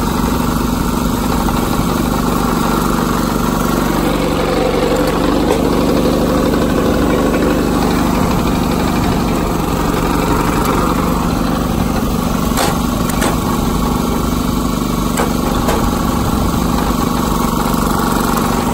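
Engine running steadily to power a hydraulic log splitter. Its sound grows louder and fuller for several seconds as the ram works. A few sharp short cracks come in the second half.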